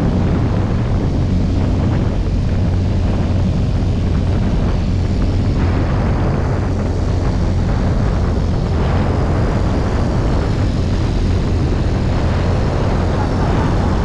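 Motorcycle engine running steadily at cruising speed, a constant low drone mixed with wind rushing over the microphone.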